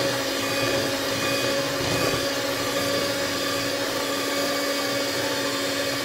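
Electric mixer running steadily at one speed with a constant motor hum, beating eggs and sugar until the mixture is thick and creamy enough to leave a trail.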